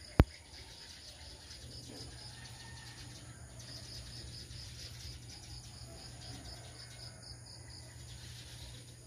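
Faint outdoor background: an insect chirping in a fast, even pulse of about four to five chirps a second, over a low steady hum, with a few faint bird calls. A single sharp click sounds just after the start.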